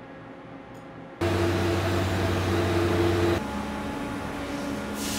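Steady factory-floor machine noise, a hum with a hiss over it, that changes abruptly about a second in to a louder, deeper hum and again past three seconds to a quieter, higher one, with a short burst of hissing near the end.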